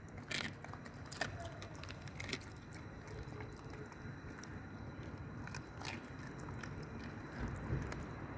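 A dog chewing and biting into raw chicken wing and shoulder pieces, with several sharp, irregular crunches, over a low steady rumble.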